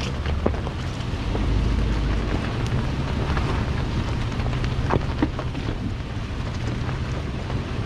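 Off-road vehicle running slowly along a rough dirt trail: a steady low engine drone under wind noise, with a few sharp knocks as it jolts over bumps, once early and twice about five seconds in.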